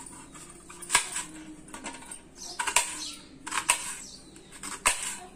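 Kitchen knife slicing a red onion on a metal plate: a handful of sharp, irregular taps as the blade strikes the plate, with quieter scraping of the cuts between them.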